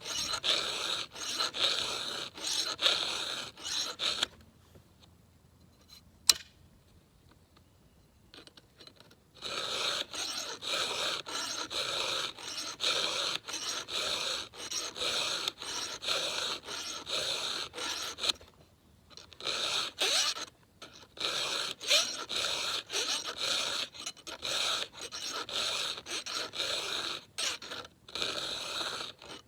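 Round file rasping back and forth through the cutters of a new Husqvarna X-Cut saw chain in a steady rhythm of strokes: the chain's first sharpening. The filing stops for a few seconds early on, with one sharp tap during the break, and briefly again twice later.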